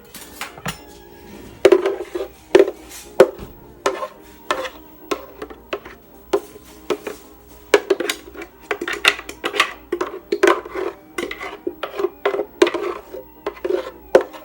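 A spoon clinking and scraping against a bowl: many quick, irregular taps, some ringing briefly.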